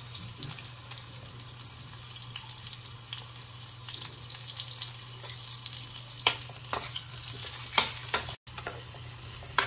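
Potato wedges sizzling and crackling in hot oil in a pan, over a steady low hum. From about six seconds in, a metal spoon clicks against the pan a few times as the potatoes are turned.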